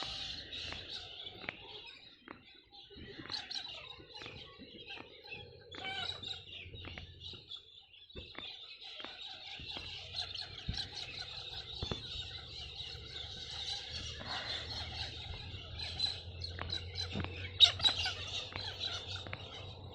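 Knuckles being cracked over and over: a run of short, sharp pops at irregular intervals, the loudest a little past three-quarters of the way through. Birds chirp steadily behind them.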